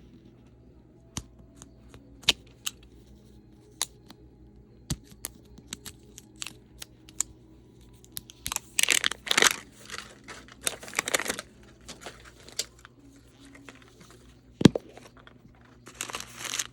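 Paper wrapping from a Mini Brands capsule being unwrapped and torn by hand. Crinkling and tearing come in a dense run about halfway through and again at the end, with scattered small clicks and taps before it and one sharp knock late on.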